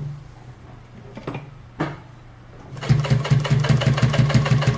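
Chandler TDU N62 walking foot industrial sewing machine, built by Nakajima: a low steady motor hum and a couple of clicks, then about three seconds in it starts sewing through layered denim, a loud, fast, even mechanical rhythm of about seven stitches a second.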